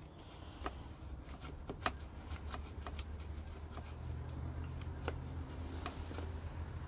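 Light, irregular plastic clicks and knocks as the loosened plastic air-intake box of a Tohatsu MFS15E outboard is wiggled by hand to slide it back. A low rumble builds from about four seconds in.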